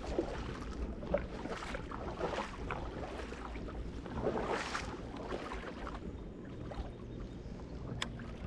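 Water lapping and splashing around a small boat, with wind rumbling on the microphone and a sharp click near the end.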